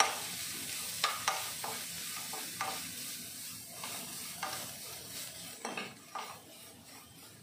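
Chopped coconut, ginger and black peppercorns sizzling in ghee in a nonstick kadai, being stirred with a slotted metal spatula that scrapes and taps against the pan every so often.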